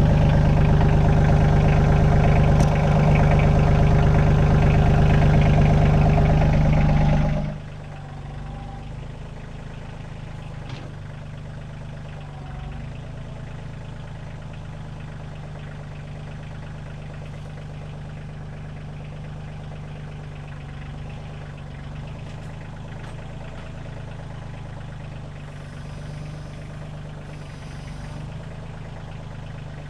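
Kioti CK2610 compact tractor's diesel engine running steadily at idle. It is loud at first, then about seven seconds in it abruptly becomes much quieter, though it keeps running at the same speed.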